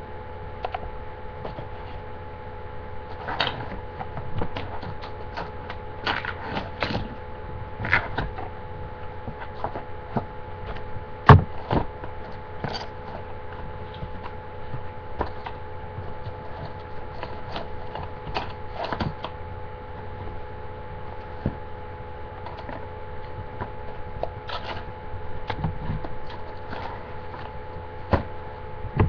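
Handling noise: scattered rustles, taps and light knocks as objects are moved and reached for, with one sharp, loud knock about eleven seconds in. A steady electrical hum runs underneath.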